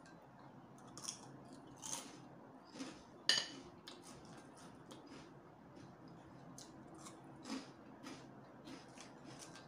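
Light clicks of wooden chopsticks against a ceramic plate and against each other while picking up noodles. About five scattered clicks, the loudest about three seconds in.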